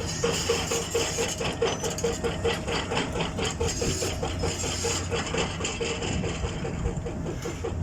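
Concrete mixer truck's engine running steadily, with a regular beat of about four knocks a second.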